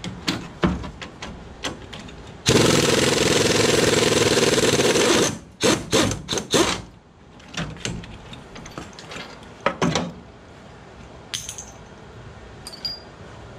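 Impact wrench hammering on a VW Beetle front beam mounting bolt for about three seconds, then several short trigger bursts as it works to break the bolt loose, with clicks and knocks of the tool and socket on the metal around it.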